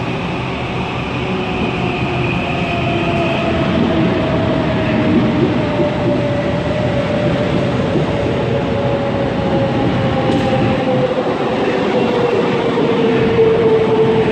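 Train running on the rails, a steady rumble of wheels with a whine that slowly falls in pitch and grows a little louder.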